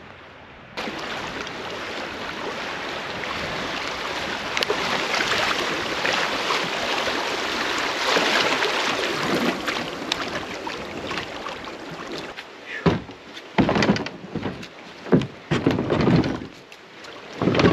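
Rushing water of a shallow riffle around a fishing kayak running downstream. About three-quarters of the way through this gives way to a series of separate thumps and scrapes as the kayak hull is dragged up a rocky dirt bank.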